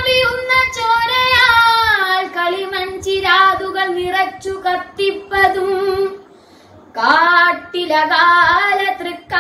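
A boy singing a Malayalam poem solo, without instruments, in long held notes that waver slightly, with a breath pause of about a second past the middle.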